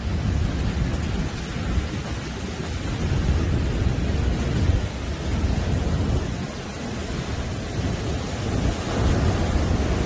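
Heavy surf breaking on a sandy beach: a continuous deep rush of white water, heaviest in the low end, that swells and eases as successive waves break and spill up the sand.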